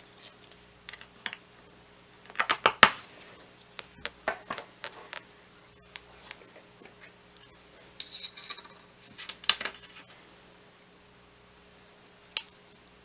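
Scattered small clicks and taps of objects being handled on a tabletop, loudest in a quick cluster of sharp taps about two and a half seconds in, over a faint steady hum.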